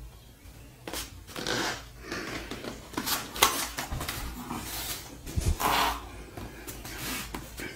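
A cardboard product box being handled by hand: scraping and rubbing of the cardboard with several short knocks as it is turned over and set down.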